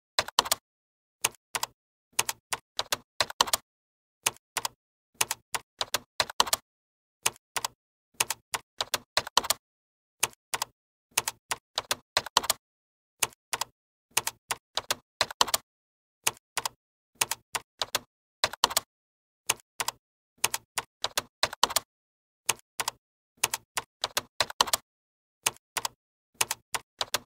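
Keyboard typing clicks in short, irregular clusters of two to five keystrokes, with silence between the clusters.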